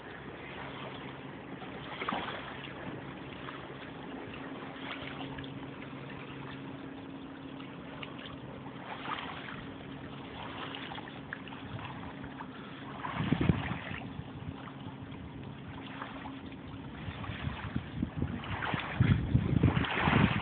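Small waves lapping gently on a pebble lakeshore, with a steady low hum underneath that stops about three-quarters of the way through. Wind rumbles on the microphone briefly in the middle and again near the end.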